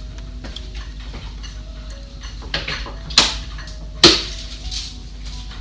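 A few sharp clicks and knocks of tools and parts being handled on a workbench, the loudest two about three and four seconds in, over a steady low hum.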